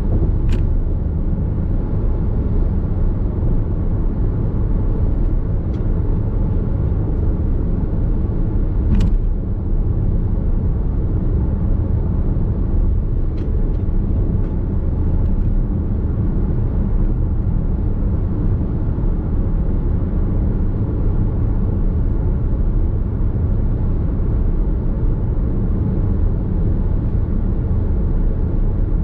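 Steady tyre and road noise with a low rumble from a Nissan X-Trail Hybrid cruising at expressway speed, heard inside the cabin. Two brief clicks come through, one just after the start and one about nine seconds in.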